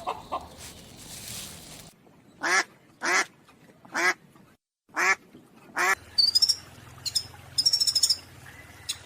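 Duck quacking five times, about a second apart. From about six seconds in, small birds chirp in quick high trills.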